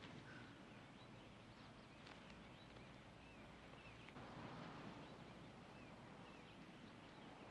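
Faint outdoor ambience with small birds chirping now and then, short high chirps over a quiet background hiss.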